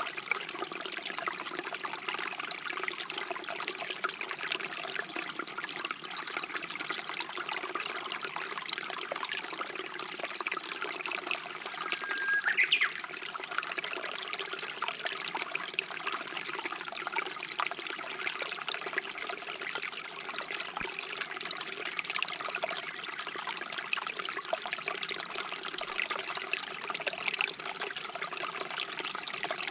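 Stream water running and trickling steadily, with one short bird whistle about twelve seconds in, a held note that rises quickly at its end.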